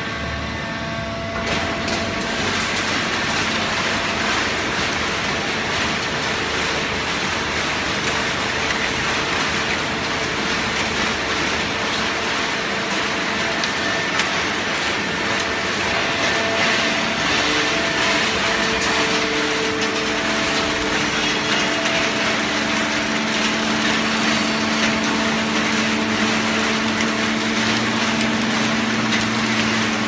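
Fully automatic horizontal hydraulic baler running: a loud, steady machine noise with an even hum from its hydraulic power unit and motor. It gets louder about a second and a half in.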